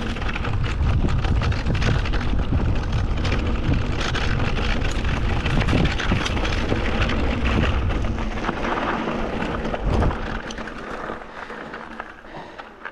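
Wind buffeting the action camera's microphone over mountain-bike tyres crackling on a gravel track as the bike rolls along. The noise dies down over the last few seconds.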